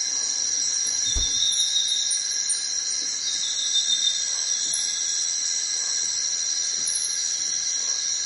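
A steady, high-pitched drone of forest insects that goes on without a break, with faint rustling of banana leaves being handled and laid on the ground.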